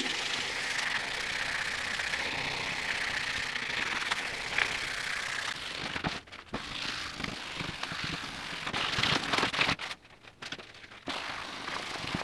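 Wet sandpaper scrubbing back and forth over a soapy, painted vinyl dash pad, sanding off the old flaking black paint. A steady rasp at first, then separate strokes with short pauses.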